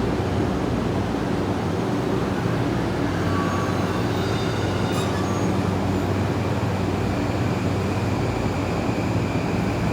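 E217 series electric commuter train at the station platform, a steady low hum from the train with one short click about five seconds in.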